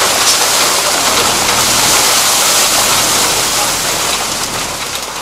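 A truckload of mullet and crushed ice sliding out of the tipping truck bed onto wet concrete, a loud, steady rushing clatter that eases off near the end. The truck's engine runs underneath.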